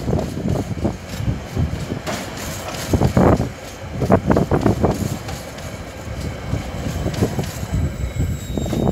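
Empty container flat wagons of a freight train rolling past, rumbling, with their wheels clacking in quick clusters as the bogies go by.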